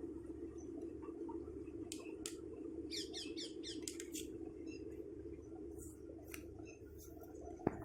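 Steady low hum, with a short run of quick, high chirps about three seconds in and a few sharp clicks.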